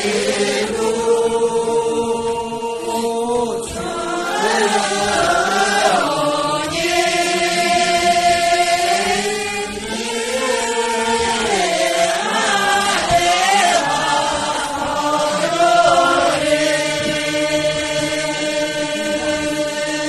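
A group of people singing a slow song together in unison, with long held notes and gliding melodic turns.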